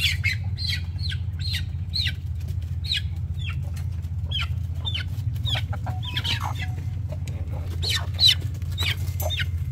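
Chickens in a run: young chicks peeping in short, high, falling chirps, two or three a second, with a few lower clucks from the adult birds. A steady low hum runs underneath.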